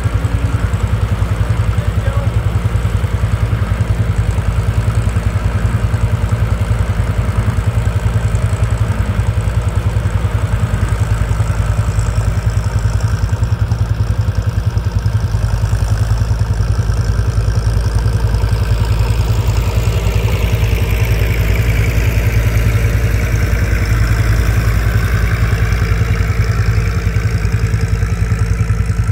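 John Deere tractor engine running steadily at a low, even speed, with a fast regular chug.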